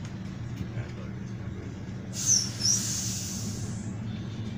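A bus engine runs steadily, heard from inside the cabin. About two seconds in, a loud high hiss lasting nearly two seconds cuts across it, with two short squeaks near its start.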